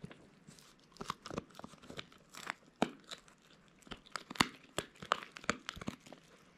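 Beagle puppy gnawing on a hard chew stick: irregular crunching and cracking with sharp clicks, a couple of louder cracks near the middle.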